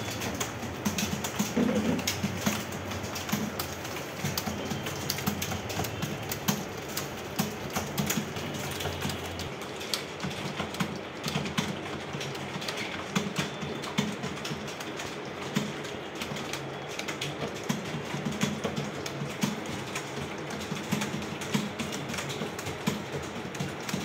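Several computer keyboards being typed on at once, a dense, continuous clatter of key clicks. A low steady hum underneath stops about nine and a half seconds in.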